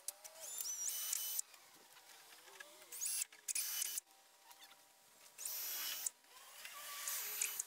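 Cordless drill boring pilot holes through the ash gunwale into the fiberglass hull, in four short runs of about a second each, each with a high motor whine that rises as the drill spins up.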